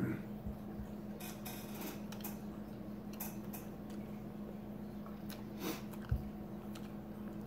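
Scattered light clicks and taps of a metal fork against a bowl of tuna, over a steady low hum, with a soft thump about six seconds in.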